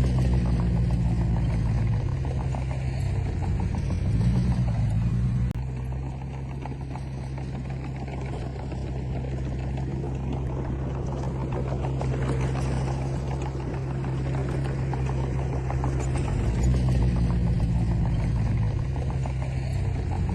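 Heavy-equipment diesel engine running steadily under load, swelling and rising in pitch about four seconds in, dropping off abruptly shortly after, then building up again near the end.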